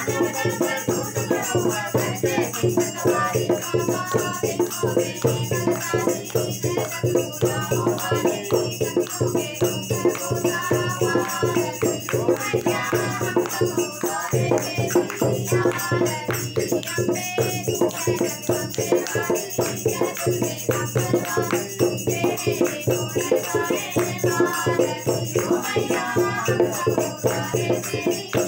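A Hindu devotional aarti sung by a woman and two boys together, accompanied by a hand-played dholak drum keeping a fast, steady rhythm.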